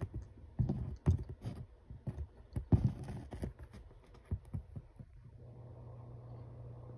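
Handling noise: a run of irregular sharp clicks and knocks, with the hooked metal masses and the camera being handled. It stops about five seconds in, and a steady low hum takes over.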